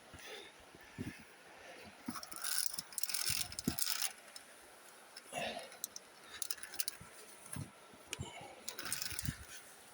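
Metal via ferrata gear, carabiners and lanyard, clinking and rattling in scattered bursts as a climber moves along the route, with rustling in between.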